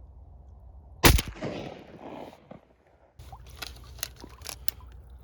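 A single shotgun shot about a second in, echoing away over the next second or so, followed by a string of small clicks and knocks.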